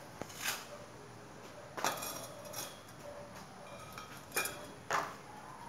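Steel pool-frame tubes clinking and knocking against each other and on concrete as they are slotted together and set down: several short, sharp clinks, some with a brief ring.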